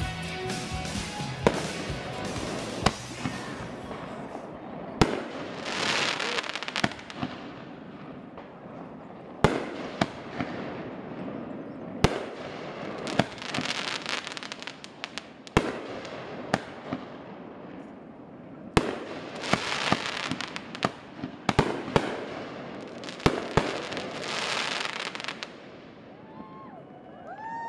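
Aerial fireworks display: about twenty sharp bangs of shells bursting at irregular intervals. A noisy hiss between them swells and fades several times.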